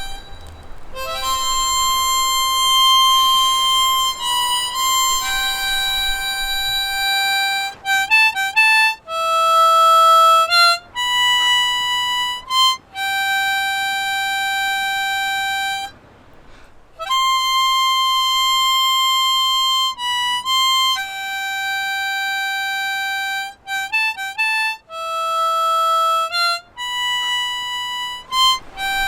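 Background music: a slow melody of long held notes on a reedy wind instrument, with a short pause about halfway through.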